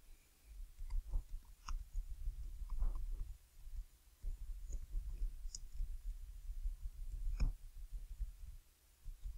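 Computer keyboard typing: irregular key clicks, each with a dull low thud.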